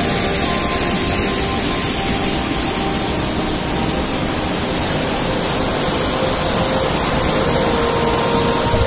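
Water of a small hill stream pouring down a cascade: a steady rushing sound.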